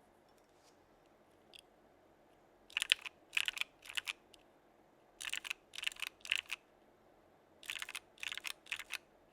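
Keystrokes on a mechanical keyboard with lubed Gateron North Pole linear switches, a Geonworks Frog with an aluminum plate and CRP Desko keycaps. They come in three short clusters of about four presses each, starting about three seconds in.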